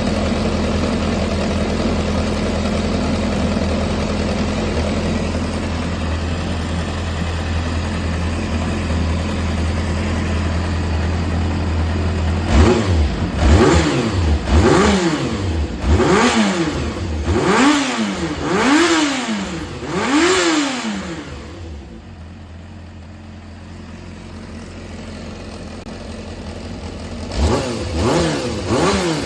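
Yamaha XJR400 air-cooled inline-four engine idling steadily, then blipped through about six quick revs that rise and fall, settling back to a quieter idle before two more revs near the end. The seller says it runs well with no abnormal noise.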